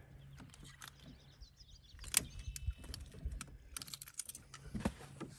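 Scattered clicks and metallic clinks of pliers and a fishing lure's hooks as the hook is worked free of a pike's mouth. The sharpest click comes about two seconds in, and a quick run of clicks follows near the end.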